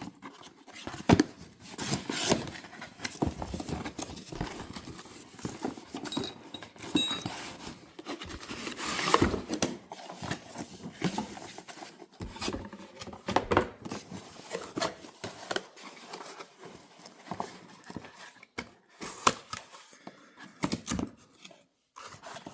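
Packaging and a tool case being handled and opened: irregular rustling, clicks and light knocks of cardboard, plastic and the tool being moved about.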